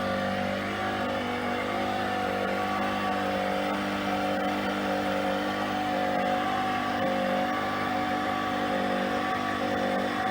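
PRO-FORM Cardio Strong treadmill running, its motor and belt rollers making a steady hum and whine of several tones, some of which swell and fade.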